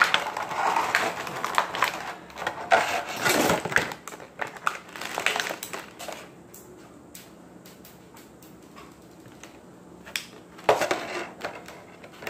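Rigid clear plastic blister packaging of a Tech Deck fingerboard set being gripped and pried at to get a deck out: crackling, clicks and knocks, busiest in the first half, thinning to scattered faint clicks, then another burst of handling near the end.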